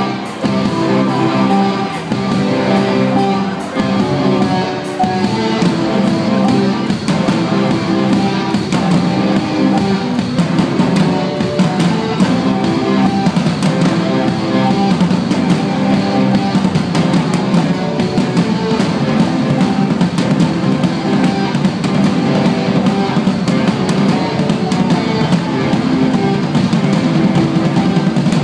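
Live band playing a song, with guitar and drum kit.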